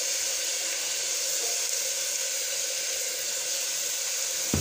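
Onions, ginger-garlic paste and ground spices frying in hot oil in an open pressure cooker, giving a steady sizzle. A single short knock near the end.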